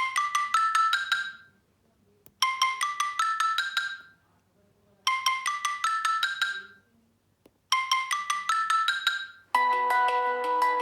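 Samsung Galaxy Note 3 Neo ringtone: a quick rising run of short struck notes, played four times with a brief pause between each. Near the end a different ringtone starts, with fuller, held notes.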